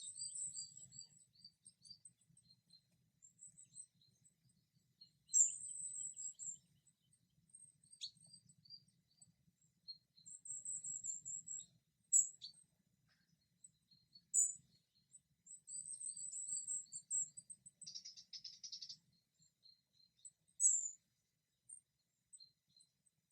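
Small forest songbirds chirping and singing: short, very high-pitched trills and strings of quick notes come in phrases with short pauses between them.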